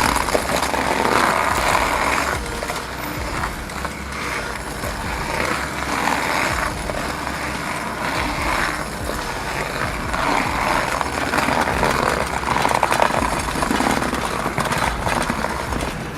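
Rotary stump grinder cutting into a stump: a loud, noisy mechanical grinding that swells and eases several times.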